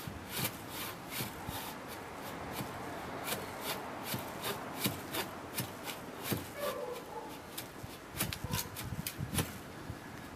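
Hand saw cutting through a thin tree branch, its teeth rasping through the wood in steady back-and-forth strokes about two to three times a second.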